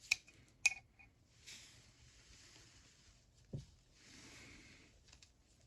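Small steel parts of a ratchet being handled during teardown: two sharp metallic clicks early on, soft rubbing and rustling of parts against hands and the work surface, and one dull knock about three and a half seconds in.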